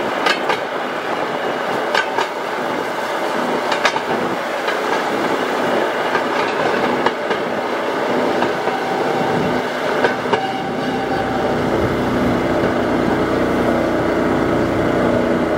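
Small rail motor car running along narrow-gauge track, its steady engine and running noise broken by sharp clicks as the wheels cross rail joints, mostly in the first few seconds. The engine note turns steadier and lower in the last few seconds.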